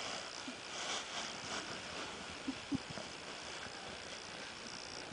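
Faint steady outdoor hiss with light rustling near the start, and two small knocks a little past halfway.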